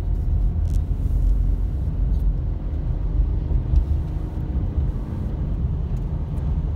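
Car driving on a wet road, heard from inside the cabin: a steady low rumble of engine and tyres, with a few faint ticks.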